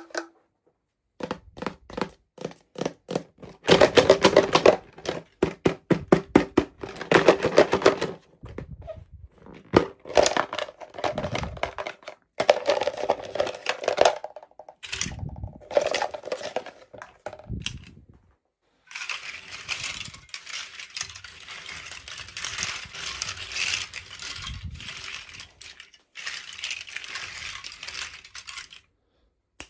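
Toy packaging being handled and opened: a quick run of plastic clicks, taps and knocks, then a stretch of crinkling and rustling wrapper for about ten seconds near the end.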